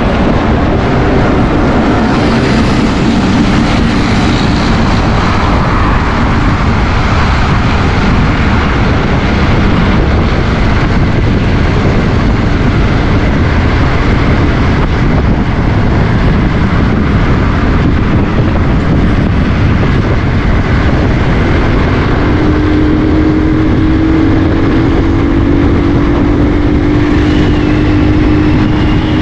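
Steady roar of wind and road noise on the microphone of a motorcycle riding at about 30 to 40 mph, with the bike's engine running underneath. About three-quarters of the way through, a steady engine hum stands out and rises slightly in pitch as the bike speeds up.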